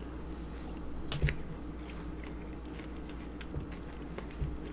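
A person biting into and chewing a fresh strawberry, close to the microphone: soft, scattered mouth clicks, one a little louder about a second in.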